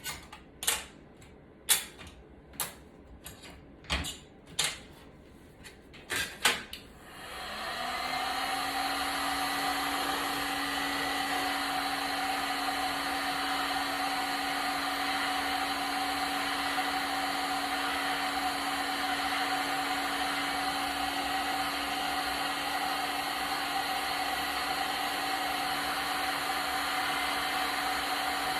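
Several sharp clicks or taps, then a blower motor switches on about seven seconds in, its pitch rising briefly as it spins up, and runs steadily with a whooshing hum.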